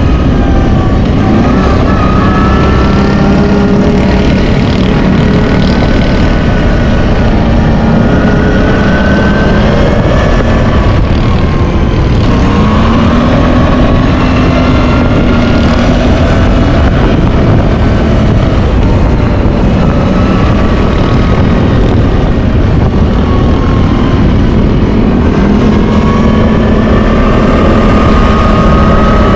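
CFmoto X8 ATV's V-twin engine running under way, its pitch rising and falling repeatedly as the throttle comes on and off, over a heavy low rumble of wind and ground noise.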